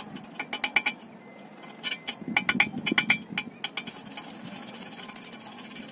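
Weak electric sparks snapping and crackling as a steel rod in a homemade welder's electrode holder is touched to a steel bar, in two bursts of quick snaps, a short one about half a second in and a longer one from about two seconds in. The current runs through a bucket of plain, unsalted water, so the spark is feeble, like shorting a 12-volt battery, and too weak to weld.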